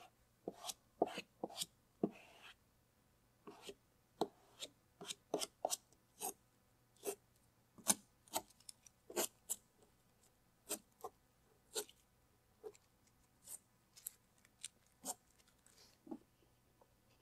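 Hand work on a vinyl stripe: a squeegee scraping over the vinyl, then strips of masking tape ripped off the door glass. Together they make a string of short, sharp scrapes and snaps, two or three a second.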